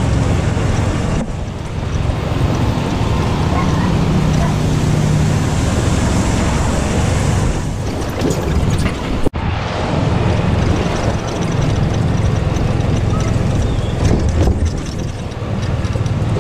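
Ride noise from a moving golf cart: a steady low rumble with a rush of air and road noise, broken by a brief sharp dropout about nine seconds in.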